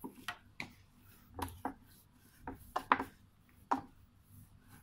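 Yeast bun dough being kneaded by hand on a wooden board: a series of soft, irregular thumps and slaps, about nine in under four seconds, as the dough is pressed down and turned.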